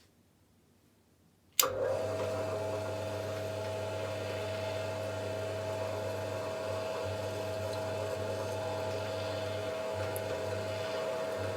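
Electric drill switched on about a second and a half in and running at a steady speed with a steady whine, used to drill holes in an aluminium round bar.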